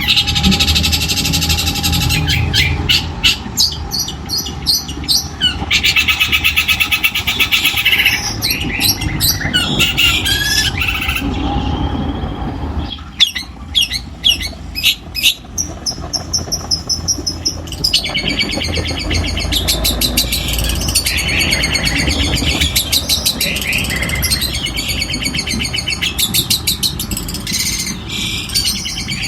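Long-tailed shrike (cendet) singing continuously: a loud, fast, harsh and varied song of rapid chattering trills and run-together phrases, with a short pause about midway. It runs over a low steady rumble.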